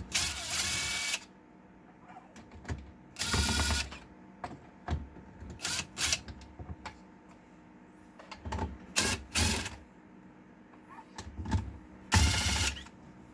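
A small electric screwdriver backing the lid screws out of an MP Mini SLA resin printer's case, its motor whirring in about six short bursts, with small clicks of the screws and bit in between.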